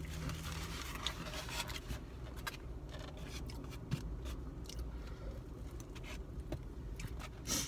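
Fork scraping and clicking against a takeout container of rice and meat, mixed with close-up chewing, over a low steady hum.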